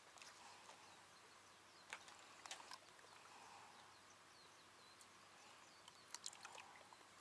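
Near silence: a faint outdoor hush with a few soft clicks about two seconds in and a short cluster of clicks about six seconds in.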